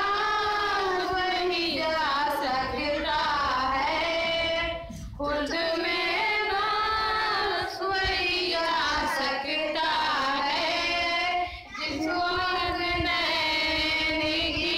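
A young female voice singing a naat, a devotional song in praise of the Prophet, unaccompanied into a microphone. The phrases are long, drawn-out and ornamented, with short pauses for breath about five and twelve seconds in.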